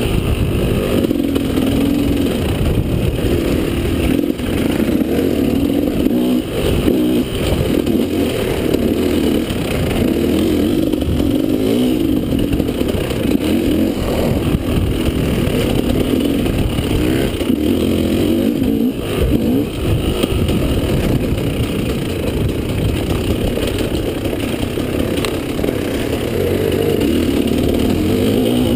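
Enduro dirt bike engine running under the rider, its revs rising and falling again and again as it is ridden along a rough woods trail.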